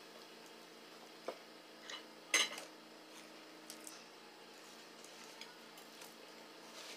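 Quiet clicks of tableware on a dinner table during a meal, with one sharper clink about two and a half seconds in, over a faint steady hum.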